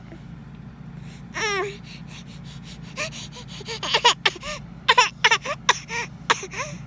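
A baby fake-coughing: a rapid run of short voiced little coughs starting about three seconds in, after a brief falling squeal about a second and a half in.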